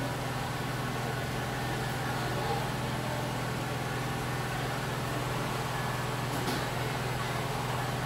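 Steady low hum under an even hiss, unchanging throughout.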